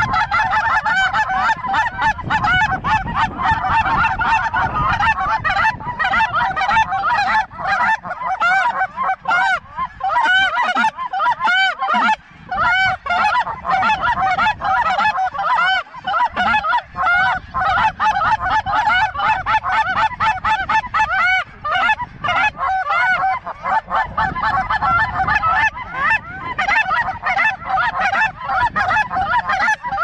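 A huge flock of geese calling overhead: a dense, unbroken chorus of many overlapping high honks and yelps.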